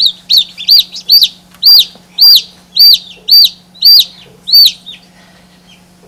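Domestic chick peeping loudly, about two high peeps a second, each rising and falling in pitch, stopping about five seconds in.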